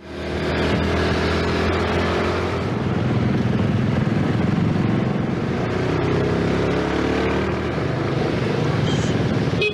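Yamaha 115cc underbone motorcycle's single-cylinder four-stroke engine running while riding, its note rising and falling with the throttle, over tyre and road noise on wet tarmac. It fades in at the start.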